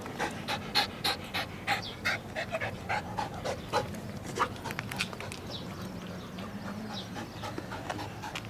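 Young flat-coated retriever panting with her mouth open, quick breaths about three to four a second, softer in the second half.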